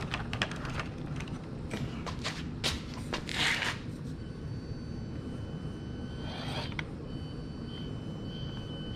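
Axial SCX24 micro rock crawler clambering over an obstacle: a rapid clatter of clicks and scrapes from its tires and plastic chassis for the first few seconds, then its small electric motor and gears running with a steady high whine.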